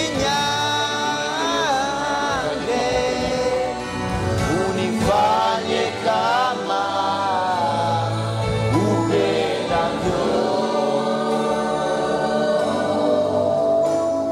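Gospel worship music: voices singing a wavering melody over a steady bass accompaniment. Near the end a single steady note is held.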